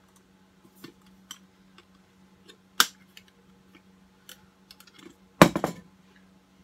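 Stainless steel nesting camp cups clicking and scraping against each other as they are handled, with a sharp metallic click about three seconds in and a louder clatter near the end as the cup set is put down on the table.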